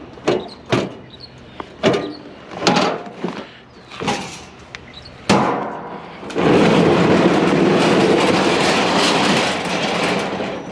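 Metal clanks and knocks, about six of them, as scrap items such as grills are handled and loaded, then a loud, steady rushing noise that starts abruptly about six seconds in and lasts about four seconds.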